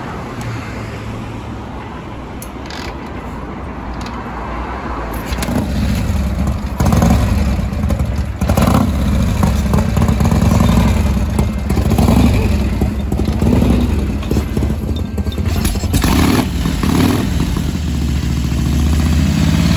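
Vintage Harley-Davidson V-twin chopper engine being kick-started; it catches about five seconds in and keeps running loudly, its level rising and falling with the throttle.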